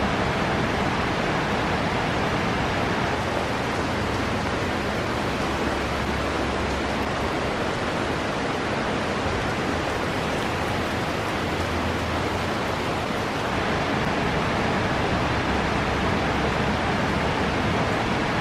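Steady rushing of water from a nearby creek and its cascades, an even hiss-like noise with no breaks.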